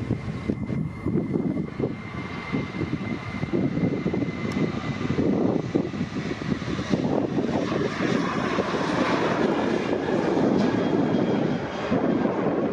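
Jet airliner's engines passing at close range: a rumbling noise that builds over the first few seconds and stays loud, with a faint steady whine early on.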